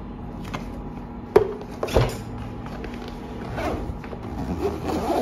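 Handling noise from packing a child's backpack: a few sharp clicks and knocks as a small plastic drink bottle is put in, then softer rustling and zipper sounds as the bag is closed.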